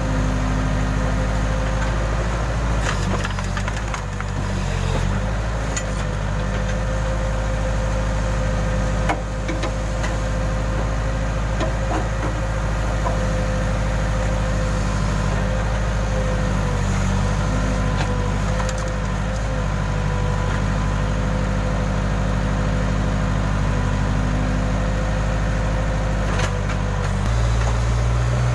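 Case backhoe loader's diesel engine running steadily with a steady whine over it, and now and then sharp knocks and scrapes as the bucket digs into the ground.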